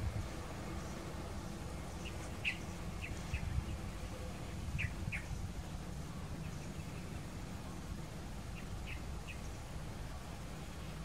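Small birds chirping: short, high chirps in clusters of two or three, over a steady low rumble.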